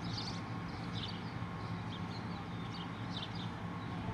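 A motor running with a steady low drone, and short high bird chirps repeating about twice a second over it.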